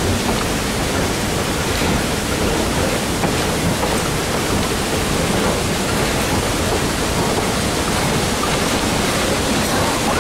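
Steady rushing noise of wind on the microphone aboard a moving train.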